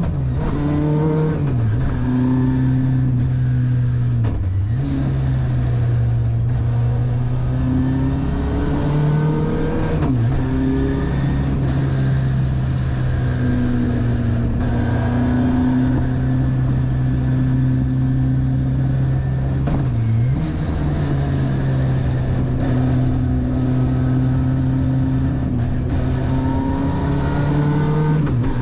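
Vauxhall 2.3 XE four-cylinder race engine on individual throttle bodies, driving a Toyota Starlet KP61 and heard from inside the cabin. It runs hard, holding steady revs for long stretches and climbing under acceleration, with the pitch dropping sharply and recovering four or five times at lifts and gear changes.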